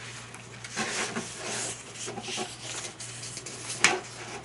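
Paper pages of a kit instruction booklet being handled and turned, rustling and rubbing, with one sharp page flap near the end, over a steady low hum.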